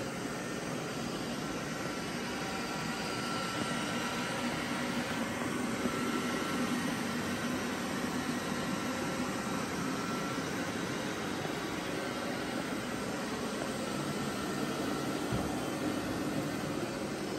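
Robot vacuum cleaners running: a steady whirring noise from their suction fans and brushes, with a faint thin whine over it and one brief low knock near the end.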